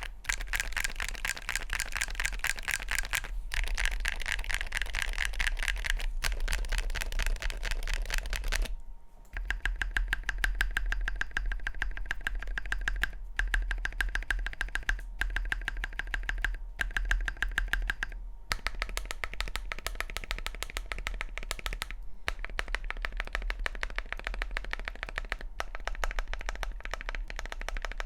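Fast continuous typing on a tray-mount mechanical keyboard with lubed Gateron Magnetic Jade Delta Dark hall-effect switches, Cerakey ceramic keycaps and a ceramic Cerakey Peak60 case: a dense stream of keystroke clacks. The typing stops for a moment about a third of the way in and pauses briefly a few more times.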